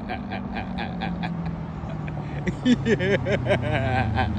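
Dodge Challenger SRT 392's 6.4-litre HEMI V8 running through a muffler-deleted exhaust with 4-inch quad tips as the car rolls slowly closer. Its deep exhaust note dips a little in pitch early on, then grows steadily louder as it approaches.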